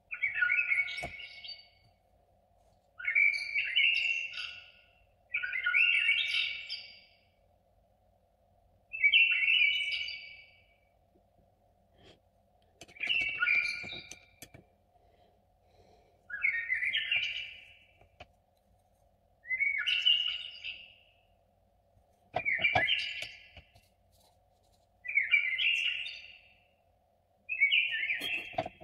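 A songbird singing short warbled phrases, one about every three seconds, each a second or so long.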